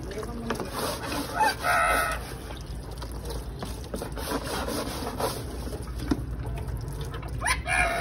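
Rose-ringed parakeet calling: one loud harsh squawk about two seconds in and another near the end.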